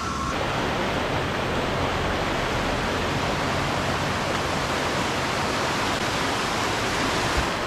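Flooded creek running high and fast over its banks: a steady, even rush of muddy floodwater.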